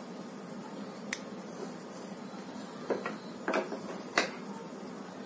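Kitchen scissors snipping the crust off a slice of soft white bread on a plate: about four short sharp clicks spread out over a faint steady hiss.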